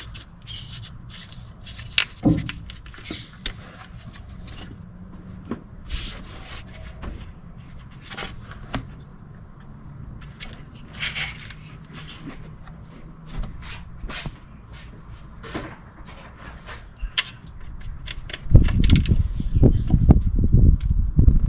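Scattered clicks, rubs and scrapes of hand tools and wiring connectors being worked under the hood, over a faint steady hum. Near the end a louder stretch of low rumbling and rubbing sets in.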